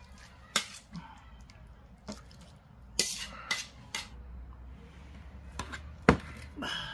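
A metal ladle clinking and scraping against a metal pan and a stainless steel bowl as spicy fish stew is served. There are several separate clinks, the sharpest near the end.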